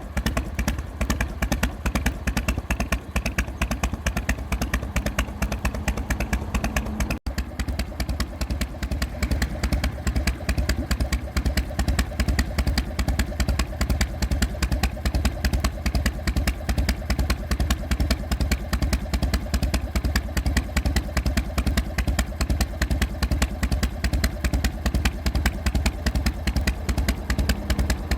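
Harley-Davidson Evolution V-twin idling through drag pipes fitted with baffle inserts, a steady run of lumpy exhaust beats, the three-beat "potato" lope. The sound breaks off for an instant about seven seconds in, then runs on the same way.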